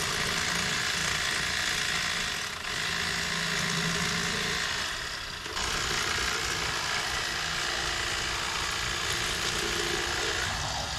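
Electric fillet knife running as bluegills are filleted, a steady motor buzz with the reciprocating blades hissing through the fish. It lets up briefly about two and a half seconds in and again near five seconds, then runs on until it stops just before the end.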